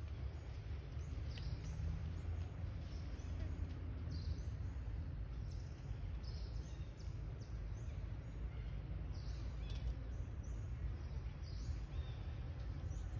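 Forest ambience: short, high bird chirps repeating about once a second over a steady low rumble.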